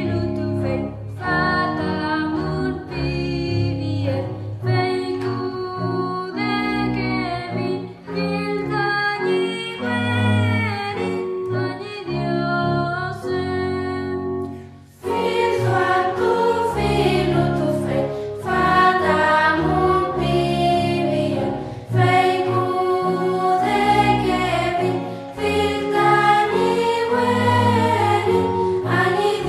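Choir singing an 18th-century hymn in Mapudungun (Chilidugu) over sustained low notes. About halfway through there is a brief drop, after which the singing comes back fuller and brighter.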